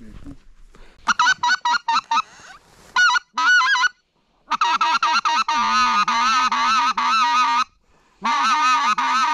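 Loud goose honking and cackling: quick runs of short honks, then longer stretches of dense overlapping calls, in bursts that start and stop abruptly with brief gaps.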